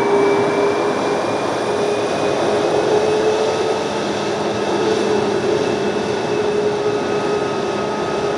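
Jet airliner engines running steadily, a constant roar with a high whine held throughout.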